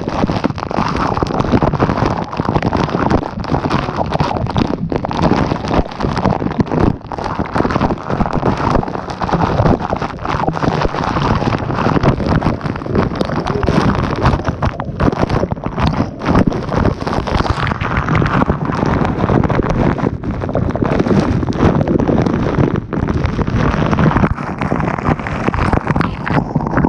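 Niagara Falls' spray and falling water drenching the camera: a loud, continuous rush of water with the flickering buffet of spray and wind hitting the microphone.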